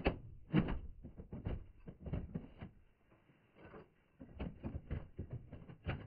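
Irregular clattering and knocks of hands and tools working on the sheet-metal parts inside a Keeprite gas furnace's cabinet, with a lull in the middle.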